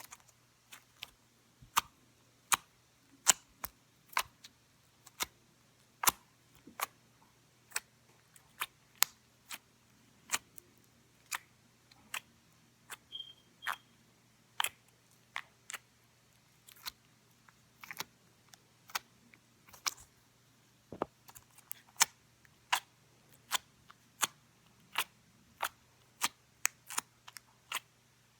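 Slime being poked with fingers, making sharp little pops and clicks, roughly one to two a second at an uneven pace and loudness.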